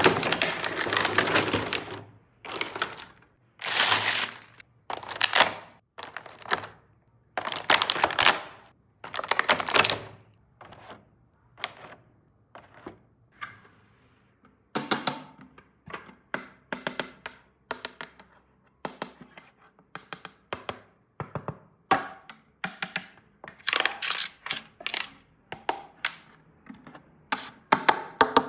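Small plastic toy pieces and their packaging being handled: a few longer crinkling, rustling bursts in the first ten seconds, then a run of irregular small clicks and taps as parts are picked up and set down.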